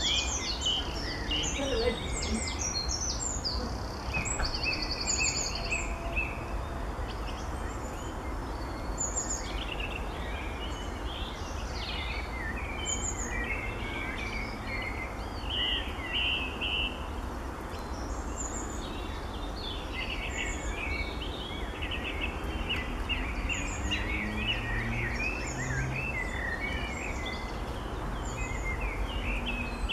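Small birds chirping and singing in short bursts, on and off throughout, over a steady low background rumble.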